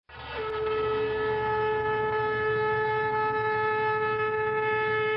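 A single long held note at a steady pitch with several overtones, over a low steady hum. It sets in suddenly and swells to full level within the first second.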